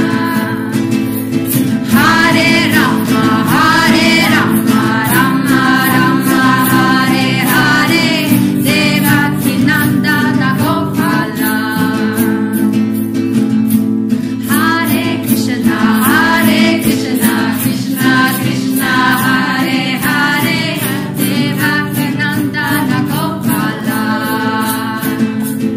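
Group singing a devotional song together over sustained instrumental accompaniment, with a steady percussive beat.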